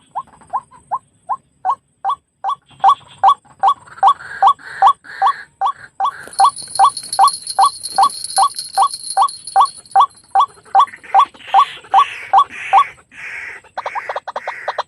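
White-breasted waterhen calls: a steady run of short, rising notes, a little over two a second, breaking into a faster, denser chatter near the end. A thin high buzz runs under the middle of it.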